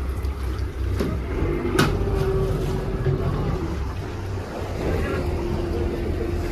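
Boat engine idling with a steady low rumble, and a sharp knock nearly two seconds in.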